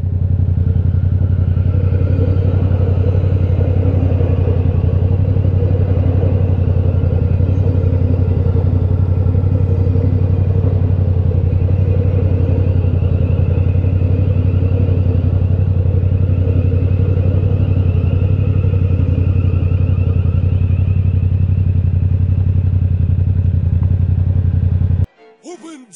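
Yamaha MT-07's parallel-twin engine through its Akrapovic titanium exhaust, running at steady, unchanging revs while cruising, picked up by a helmet microphone. The engine note cuts off suddenly about a second before the end.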